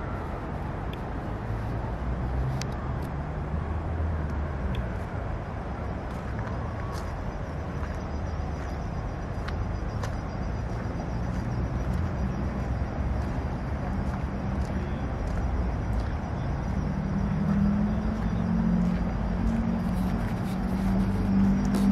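Steady low outdoor rumble of distant road traffic. A low, steady hum joins in near the end and grows a little louder.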